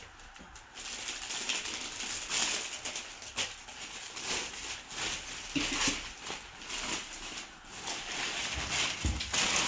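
Irregular rustling and crinkling of clear plastic clothing packaging and gift-wrapping paper as a packed shirt is handled and unwrapped.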